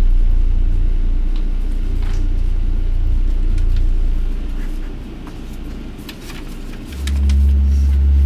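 Deep, loud rumbling drone of horror-film sound design. It eases off about halfway, then swells back in near the end with a low steady hum layered on top.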